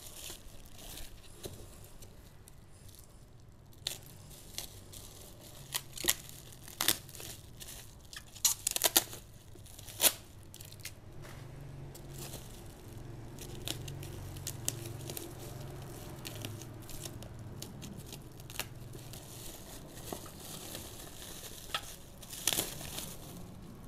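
Bubble wrap and plastic film packaging being cut, torn and peeled open by hand, crinkling, with a string of sharp snaps and crackles that are loudest in the first half and again near the end.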